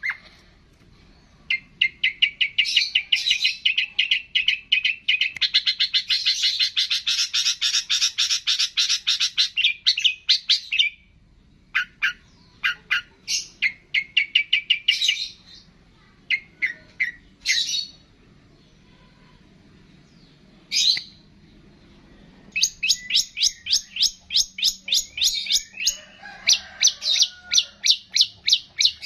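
Small songbird singing phrases of rapid, evenly repeated high chirps, several seconds each, separated by short pauses with a few single calls between them.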